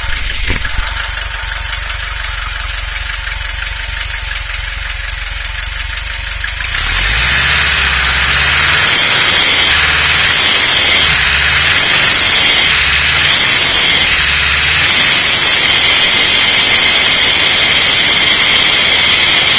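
VW engine running, heard from beneath, with a high-pitched squeal. It gets much louder about seven seconds in. The squeal's cause is unknown to the owner, and it stays the same with the alternator belt removed.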